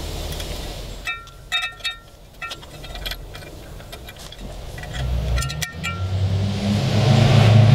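Small metallic clicks and clinks of pliers working a steel cotter pin out of the propeller nut, each with a brief ring, in a cluster about a second in and again about five seconds in. From about five seconds a low engine hum sets in and grows louder toward the end, becoming the loudest sound.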